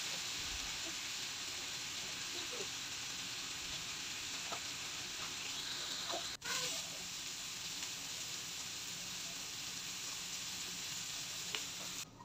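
Rohu (rui) fish steaks shallow-frying in oil in a pan, second side down: a steady sizzle with a few small pops, cutting off abruptly just before the end.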